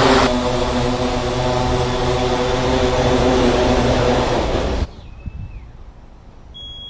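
Delivery drone's propellers whirring loudly and steadily, a hum with several steady pitches over a hiss, cut off suddenly about five seconds in. A faint steady high tone begins near the end.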